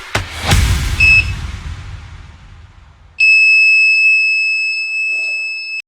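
Piezo buzzer of an Arduino flame-sensor fire alarm sounding one steady high-pitched tone for about two and a half seconds, then cutting off abruptly. Before it starts, electronic background music ends and fades away, with a short beep of the same pitch about a second in.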